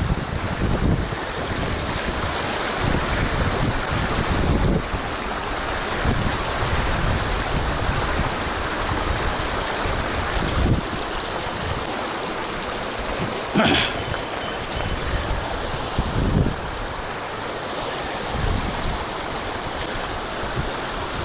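Shallow mountain stream running over rocks: a steady rush of water. Irregular gusts of wind buffet the microphone, and a single sharp knock comes about two-thirds of the way through.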